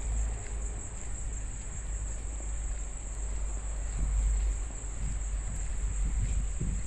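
Steady high-pitched insect trill, like crickets, running unbroken over a low rumble on the microphone, with a few soft low thumps in the second half.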